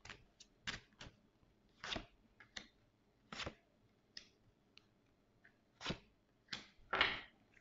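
Lenormand cards being drawn off a deck and laid on a table: soft, irregular swishes and taps, one every second or so, the loudest a little before the end.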